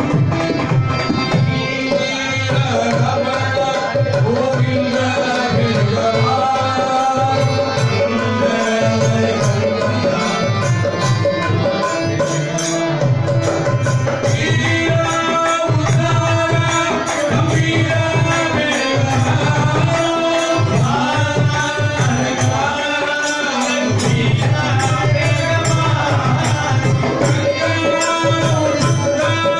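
Indian devotional music: a melody over a steady hand-drum beat and a held drone.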